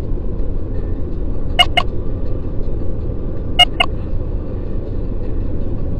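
Steady low road rumble of a car driving on a wet freeway, heard from inside the cabin. A pair of quick sharp clicks comes about every two seconds.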